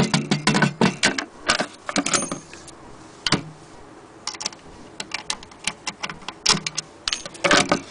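Handling noise from the wooden sewing-machine case and its string tie: irregular sharp clicks and light knocks, coming in clusters, thickest at the start and again near the end.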